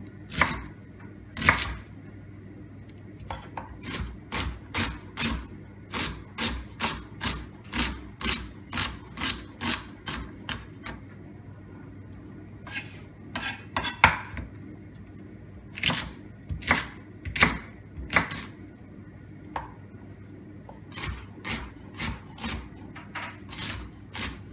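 Chef's knife dicing a fennel bulb on a wooden cutting board: sharp knocks of the blade on the board in runs of steady strokes, about two to three a second, with short pauses between runs.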